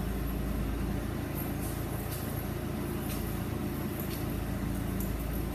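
Cat 2C5000 forklift's engine idling steadily, with a few faint ticks over it.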